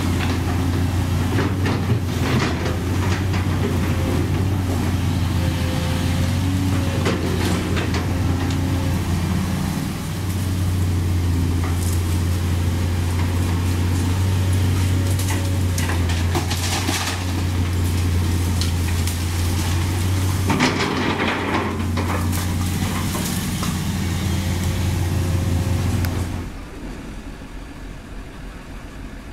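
Sumitomo SH200 crawler excavator's diesel engine working steadily under load, with its bucket scraping and knocking against broken asphalt and concrete chunks. About two-thirds through there is a brief louder rush of debris, and a few seconds before the end the sound drops sharply to a quieter engine hum.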